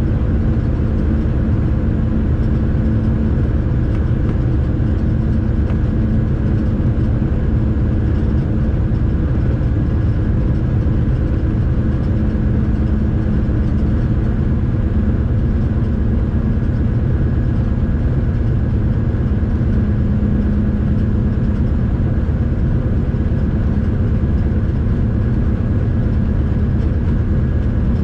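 Steady drone inside the cab of a 311D diesel-electric locomotive hauling a heavy freight train: engine and running noise with a low hum and a few steady tones over it, unchanging throughout.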